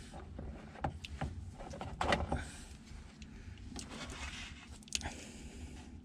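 Small clicks, scrapes and rustles of hands working a wiring-harness connector and its small metal pin terminals, the loudest click about two seconds in, with a few more near the end.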